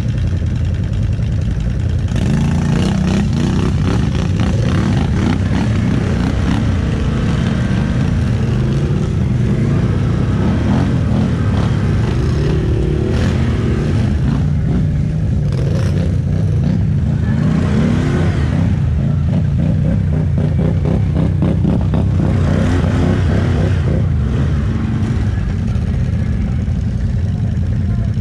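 ATV engine running under load, revving up and down as it rides, louder from about two seconds in, with rattling clatter throughout.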